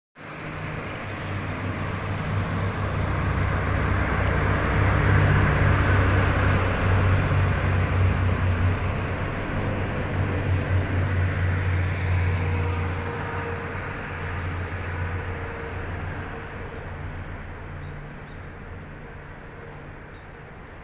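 Salon Car Naniwa tourist train running past on an elevated railway, its rumble and wheel noise swelling to a peak about five seconds in and holding, then fading away over the last several seconds.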